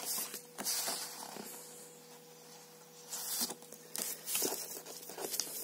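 Sheets of patterned scrapbooking paper rustling and sliding against one another as they are handled and turned over, in irregular bursts with a quieter lull about halfway through.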